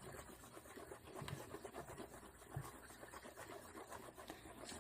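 Faint scraping and rubbing of a mixing tool stirring shampoo and shaving cream into a thick slime mixture in a bowl, with a couple of soft knocks against the bowl.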